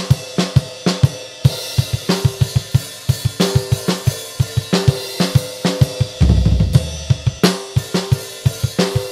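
Acoustic drum kit played solo: a busy groove of kick drum, snare and cymbal strokes, with a brief flurry of rapid low drum strokes about six seconds in.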